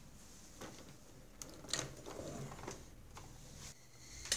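Clicks and light rattling of the 1986 IBM PC Convertible's plastic case as it is unfolded, with a sharp click near the end.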